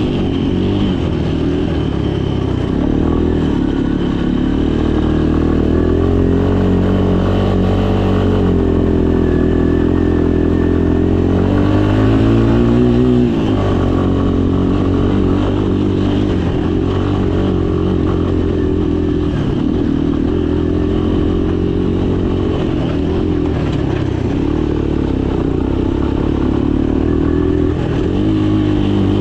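Small ATV engine running steadily under load while riding. The revs climb about eleven seconds in and drop off sharply a couple of seconds later, with smaller rises and falls after that.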